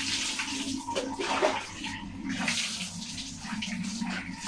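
Steady rush of running water, uneven and splashy, with a faint voice underneath.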